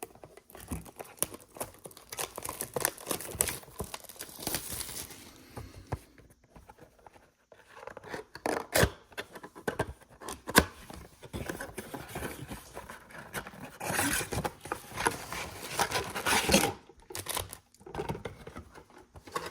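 Cardboard boxes of football trading cards being opened by hand: tearing, scraping and crinkling of cardboard and foil pack wrappers, with sharp clicks and taps.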